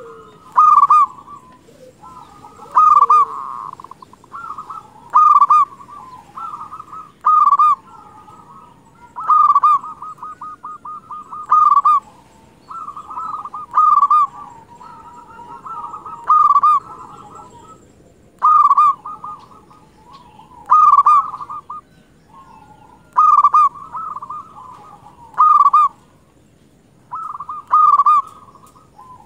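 Zebra doves (perkutut) singing: loud rolling coo phrases about every two seconds, with quieter cooing filling the gaps between.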